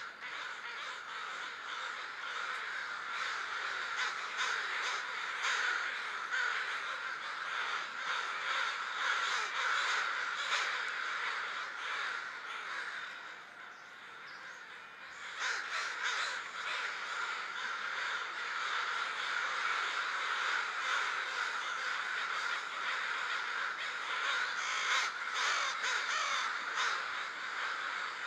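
A large flock of American crows cawing together in a dense, continuous din, typical of a pre-roost gathering. The calling thins out briefly about halfway through, then builds back up.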